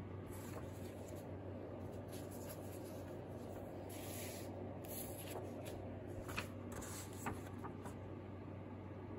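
Loose sheets of drawing paper being handled and shuffled on a wooden desk: repeated rustling and sliding, with two sharper ticks a little past the middle.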